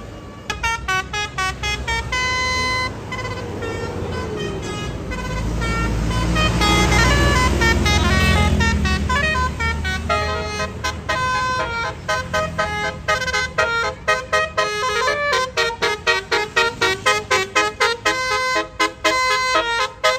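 A tour bus's telolet basuri horn plays a melody of quick, high-pitched multi-tone toots over the bus's engine, which is loudest around the middle. From about halfway on, the notes come in a fast, choppy rhythm of short blasts.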